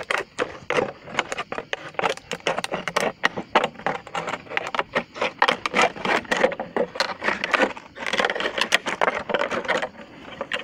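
A knife sawing through a thin plastic drink bottle to cut it in two, the plastic crackling and scraping in a rapid, irregular run of clicks.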